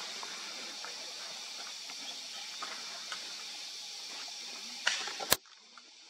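Steady hiss of forest background ambience with a few faint, scattered clicks. A short noisy burst comes near the end, then one sharp click, after which the background drops away suddenly.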